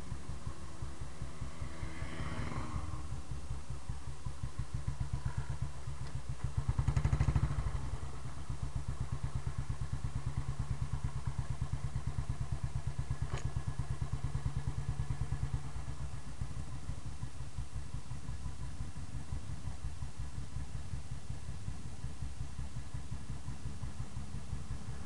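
Royal Enfield Bullet single-cylinder engine running with a steady low thump, with a louder rush of noise about seven seconds in.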